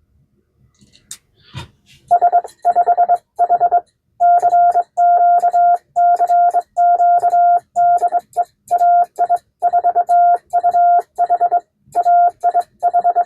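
Morse code sent on a 1922 Vibroplex Martin Junior semi-automatic key (a bug), heard as a steady single-pitched sidetone switched on and off in dots and dashes, starting about two seconds in after a few faint clicks.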